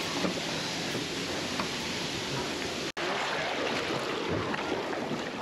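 Steady rushing wind noise across the microphone on an open ship's deck, with a brief dropout about three seconds in.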